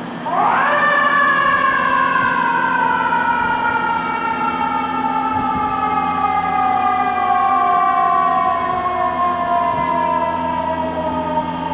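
Fire engine's mechanical siren wound up once, rising sharply in pitch in under a second, then slowly winding down as it coasts. A steady low drone runs underneath.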